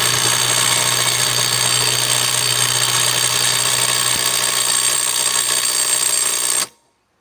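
Flex FX1431-A compact cordless impact wrench hammering continuously on a hitch ball nut, working it loose, then stopping abruptly near the end.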